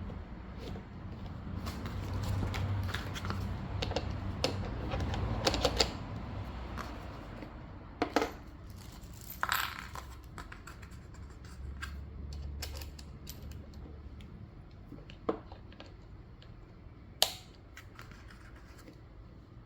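Parts of an eight-wheel folding cart being handled and clicked together during assembly: rustling handling noise with several sharp clicks and snaps, the loudest a few seconds apart in the second half.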